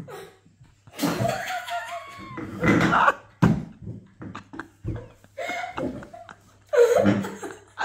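A man and a boy imitating an animal cry with their voices, in bursts broken by fits of laughter.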